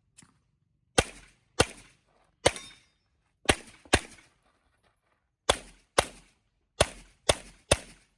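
Handgun shots fired at a quick pace: ten sharp cracks, several of them in pairs about half a second apart, as in IPSC double taps on targets.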